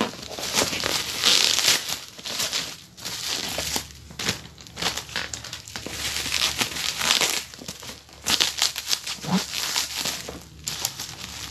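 Bubble wrap crinkling and crackling as it is pulled open and handled by hand, in irregular spells with brief pauses.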